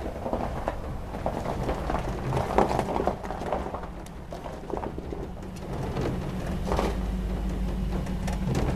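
Irregular crackling and crunching of dry pine needles and twigs on a forest floor, over a faint low steady hum.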